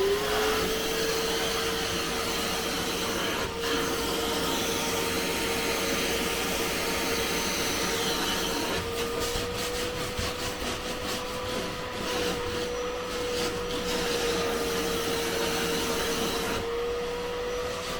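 Handheld vacuum cleaner switching on, its motor spinning up in a fraction of a second and then running steadily with a hum and rushing air. Rubbing and scraping noises come in about halfway through as it is worked over fabric.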